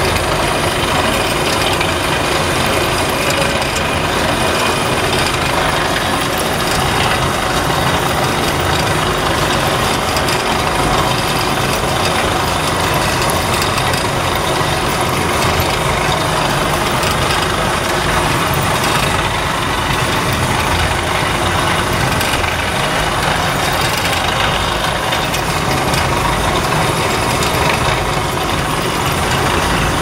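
Coconut shell charcoal carbonization plant machinery running with a steady, even mechanical noise.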